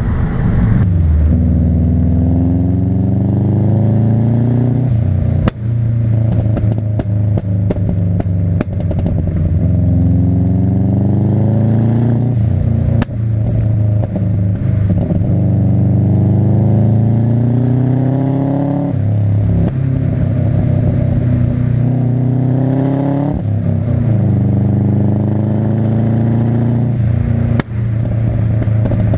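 Subaru Impreza's flat-four boxer engine accelerating hard through the gears: the revs climb steadily and drop sharply at each of about five gear changes, with scattered sharp pops and crackles. The engine has been misfiring, which the owner puts down to worn spark plugs.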